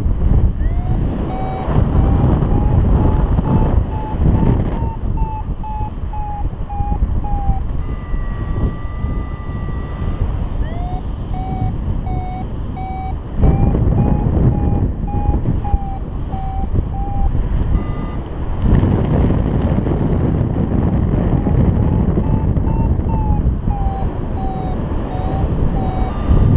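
Paragliding variometer beeping in a climb: runs of short beeps, about two to three a second, whose pitch rises and falls as the lift changes, with a steady held tone for a couple of seconds about eight seconds in. Wind rushes loudly over the microphone throughout.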